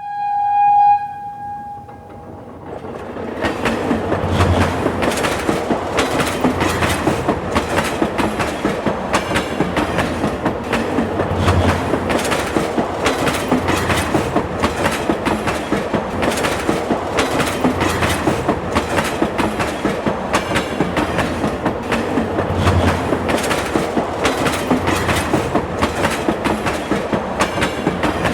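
Subway train: a short horn blast at the start. Then the train runs past with a steady rumble and rapid, regular clickety-clack of wheels over rail joints.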